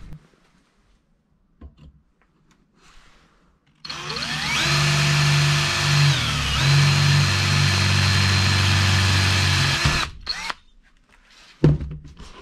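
Cordless drill boring a small hole in a metal handbrake button end piece. About four seconds in the motor spins up with a rising whine and briefly sags as the bit bites. It then runs steadily for several seconds and stops suddenly. A single sharp knock follows near the end.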